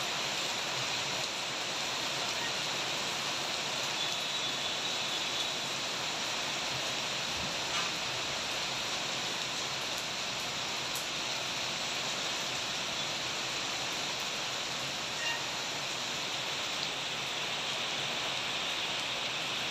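Heavy rain falling steadily, an even hiss with a couple of faint knocks along the way.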